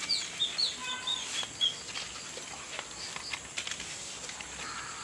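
Small birds chirping: a quick run of short, falling high chirps in the first couple of seconds, then faint scattered ticks and crackles.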